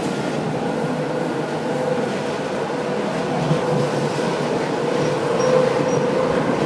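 Running noise inside a moving EN57 electric multiple unit: a steady rumble of wheels on the rails, with a constant whine running through it.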